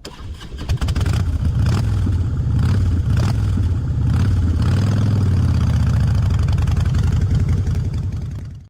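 Motorcycle engine running, with a brief rev up and back down around the middle, then fading out near the end.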